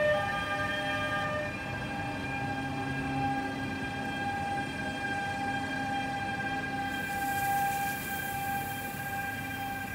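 Bombardier TRAXX class 187 electric locomotive pulling away slowly, its traction equipment giving a steady whine of several held tones that step up in pitch right at the start, over a low rumble. A high hiss joins in about seven seconds in.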